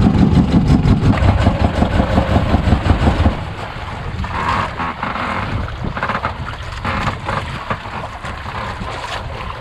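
A boat engine running with a low, evenly pulsing beat for about three seconds, then it drops away abruptly, leaving quieter wind noise.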